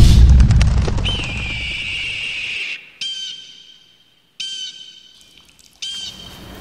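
Film soundtrack: a loud, deep music swell dies away, a high whistling tone holds for about two seconds, then three short high whistle-like calls sound about a second and a half apart.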